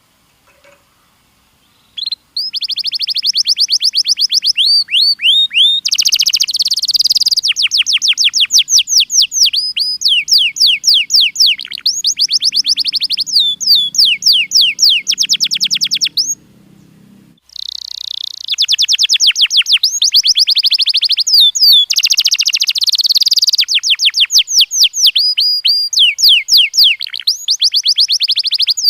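Domestic canary singing: long rolling trills of rapid repeated notes, starting about two seconds in, with a short pause past the middle before the song resumes.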